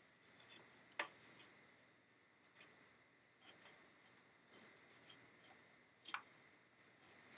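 Faint handling sounds of artificial sinew being wrapped and pulled tight around a wooden kayak frame and gunwale: scattered small clicks and rustles, a sharper click about a second in.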